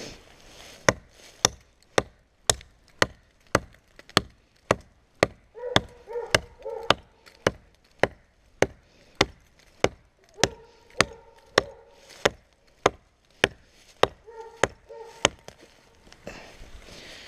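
A hatchet chopping into a small tree's trunk, sharp blows a bit under two a second, steady until they stop about 15 seconds in.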